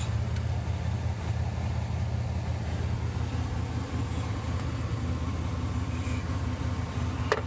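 Steady low mechanical hum, like a motor or engine running nearby, with one sharp click near the end.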